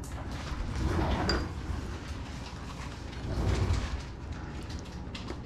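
Hands fitting a plastic propeller and spinner onto an RC plane's motor shaft: rubbing and small clicks, with two louder stretches of handling noise, one about a second in and one about three and a half seconds in.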